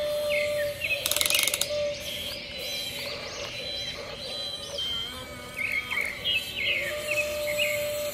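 Small birds chirping repeatedly in short bursts, with a brief fast ratcheting rattle of clicks about a second in.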